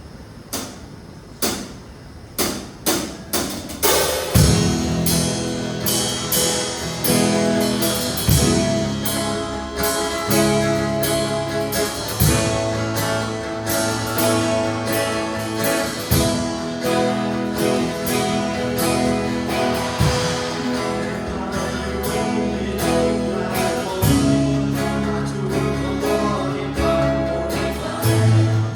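Worship band music: a run of drum hits builds up over the first few seconds, then the full band comes in about four seconds in and plays on with a steady beat.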